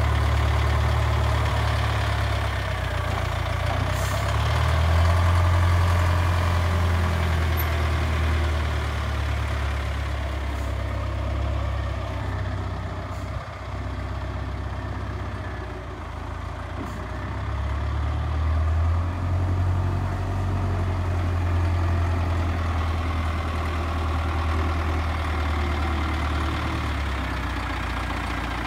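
Caterpillar 920 wheel loader's diesel engine running as the machine drives and manoeuvres, the engine note rising and falling with the throttle, climbing about five seconds in and again near the twenty-second mark.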